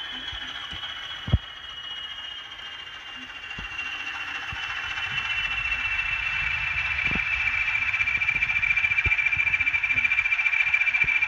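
A DCC sound decoder in an N gauge Graham Farish Class 20 diesel model plays the Class 20 engine sound while the model runs. The sound carries a high whine that slowly falls in pitch and grows louder as the model comes closer. There is a sharp click about a second in, with a few fainter clicks after it.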